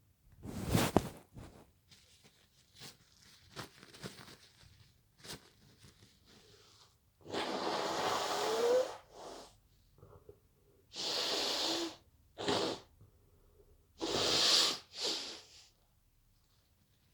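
A person with a head cold sneezing, four loud nasal bursts, the first short and sharp, the later ones longer, each of the later three followed by a short second burst. Small clicks and rustles come between the first two.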